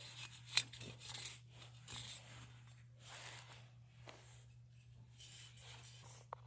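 Faint, irregular rubbing and rustling of metal-polish wadding being worked over a chrome car horn ring, with a sharp click about half a second in.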